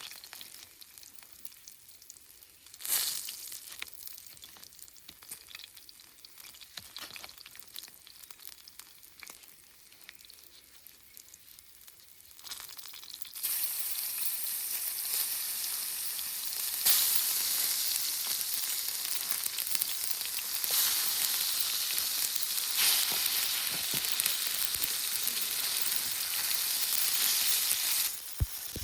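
Food frying in a pan, sizzling. The sizzle jumps much louder about halfway through and steps up again a few seconds later, then falls back near the end.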